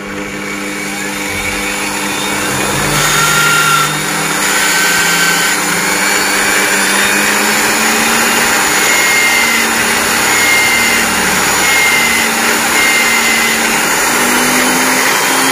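Homemade chainsaw-chain grinder, a converted electric aluminium-cutting saw with a grinding stone, running and sharpening a chainsaw cutter tooth. It is a loud, steady whir that builds over the first few seconds, with several brief high whistles.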